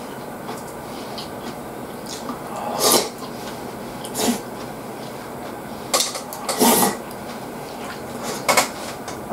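Eating sounds: a metal spoon working a handheld bowl of food, with chewing and slurping, in about five short noisy bursts, the loudest about three and seven seconds in, over a steady hiss.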